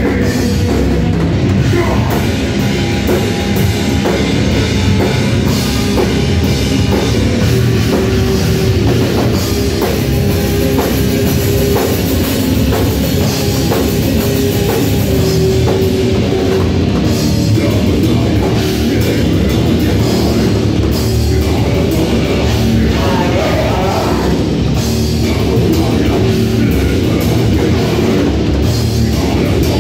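Live heavy metal band playing loudly without a break: drum kit, amplified guitars and a singer on the microphone.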